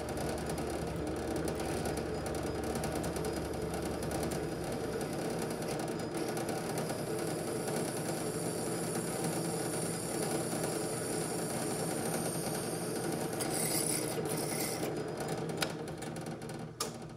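Drill press running as a small cutter mills a slot into thin brass sheet: a steady motor hum under a continuous metal-cutting noise, with a higher whine through the middle. Near the end the sound falls away with a few sharp clicks.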